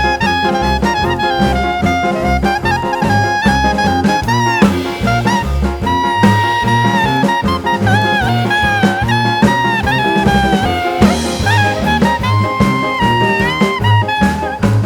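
Background jazz-swing music with brass melody lines over a steady bass and drum beat.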